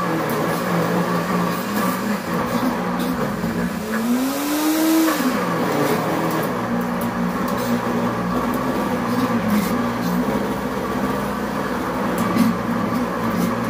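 Pampered Chef cooking blender motor running on its grind setting through a thick cream cheese and cocoa mousse mixture. It labours at a low pitch, and about four seconds in it rises in pitch and falls back as the blades briefly free up. Light knocks come through as the tamper works the mixture through the lid.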